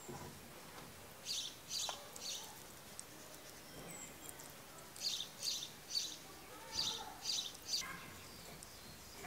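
Small bird chirping: short, high chirps in two runs, about three a little after the first second and about six more from five to eight seconds in.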